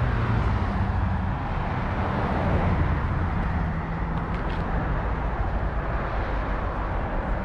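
Steady outdoor traffic noise from passing road vehicles, with a low hum that fades out past the middle.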